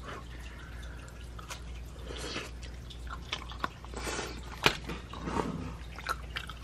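A person biting into and chewing a slice of hot thin-crust pizza: scattered small crunches and wet mouth sounds, with one sharper click about two-thirds of the way through, over a low steady hum.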